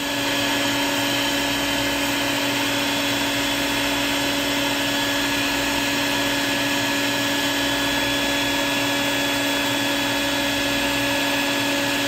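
Vacuum cleaner running with a steady hum, its hose nozzle sucking dust and lint out of a sewing machine's bobbin and feed-dog area.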